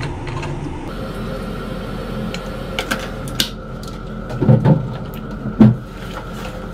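Small sharp clicks from a plastic mouthwash bottle and its cap, then Listerine mouthwash being swished around in a closed mouth, with a few loud swishes near the end.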